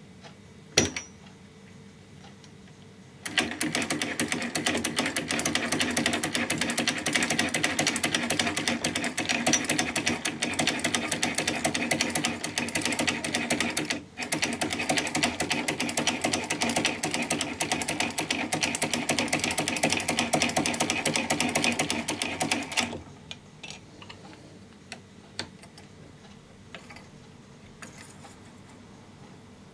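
A c.1947 Essex miniature chain-stitch sewing machine, hand-cranked, clattering rapidly and evenly as it stitches fabric. A single click comes about a second in. The stitching starts a few seconds in, breaks off for a moment around the middle, and stops a few seconds before the end, followed by a few light clicks.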